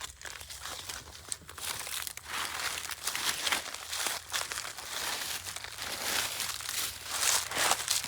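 Dry, frost-nipped sweet potato vines and leaves rustling and crackling as someone pushes through them, an irregular crinkling that grows louder after a couple of seconds and stops at the end.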